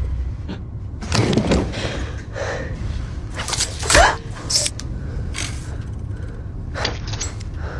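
Film fight sound effects: a string of short scuffling and thudding sounds, the loudest impact about four seconds in, over a low steady rumble.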